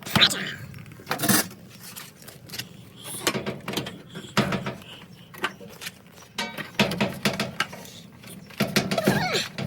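GE dryer's plastic and metal parts clicking, knocking and scraping as they are handled and fitted during a belt and drum-slide repair.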